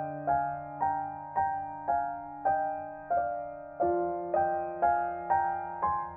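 Gentle background piano music: single notes struck about twice a second and fading, over held low notes that shift to a new chord about four seconds in.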